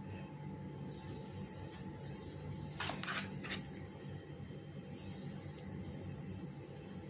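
Roasted semolina pouring in a stream into simmering orange juice in a pan, a steady hiss starting about a second in. A few quick scrapes of a wooden spatula stirring it in come around three seconds in.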